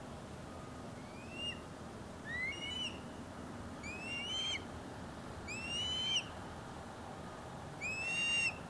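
Osprey calling: five short whistled notes, each sliding upward, spaced a second or two apart, the later ones louder. A steady low background rumble runs beneath them.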